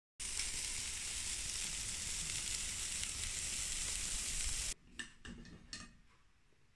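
Pork neck steaks sizzling on a barbecue grill, a steady hiss that cuts off suddenly after about four and a half seconds. A few light clinks of a knife and fork on a plate follow.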